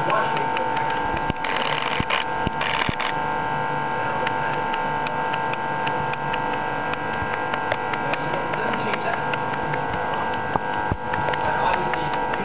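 Steady hum of a running pulsed laser deposition system (PVD Products PLD/MBE 2000), with a strong high steady tone and faint irregular ticks. Two short bursts of hiss come in about one and a half and two and a half seconds in.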